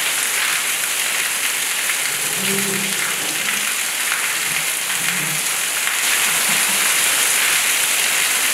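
Steady rain, a dense even hiss, heard from inside a traditional Kerala house. A faint low hum rises and fades a few times underneath.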